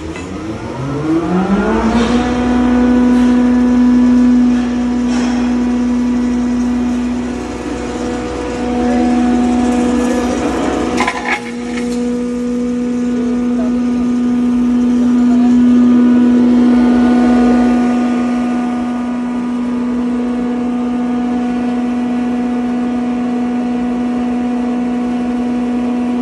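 Rock salt grinder (pulverizer) and its belt-drive electric motor switched on, spinning up with a rising whine over about two seconds, then running at speed with a steady hum. A single sharp crack sounds about eleven seconds in.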